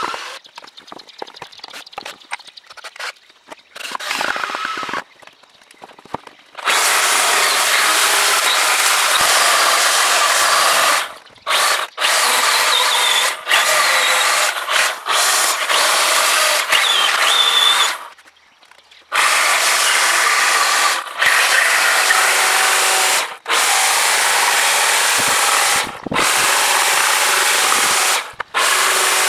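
A cordless drill runs in short bursts through a beech board. Then, about seven seconds in, a Hitachi electric chainsaw starts cutting and carving a beech block, running at full speed in long stretches and cutting off completely each time the trigger is released, many times over.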